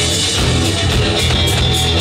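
Rock band playing: distorted electric guitars over bass and drums, with steady cymbal strokes.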